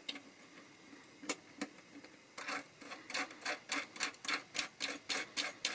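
Retaining washer and nut being threaded by hand onto the metal barrel of a guitar endpin jack: small sharp clicks, a couple at first, then a quick run of about three a second from about halfway in.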